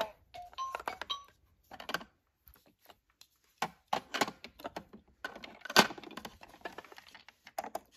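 Hard plastic toy food pieces and a plastic toy tea tray clicking and knocking as the pieces are picked up and set into the tray's slots, a scatter of short taps with one sharper knock past the middle.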